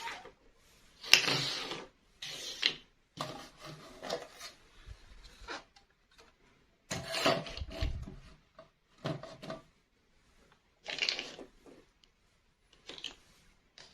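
Plastic toy pieces and packaging being handled: a series of short rubbing and scraping sounds with a few clicks, the sharpest about a second in.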